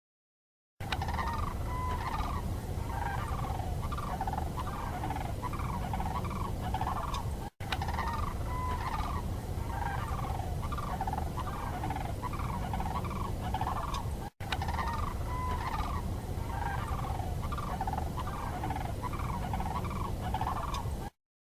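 Turkey gobbling and calling, a rapid string of short calls over a low rumble. The same recording of about seven seconds plays three times, with a brief break between each.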